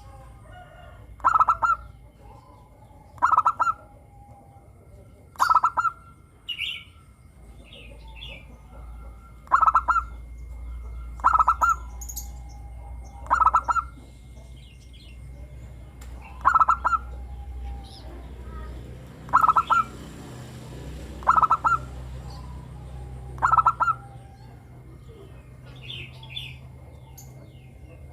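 Zebra dove (perkutut) singing its short crisp cooing phrase over and over, about once every two seconds. Fainter high chirps from smaller birds come in between.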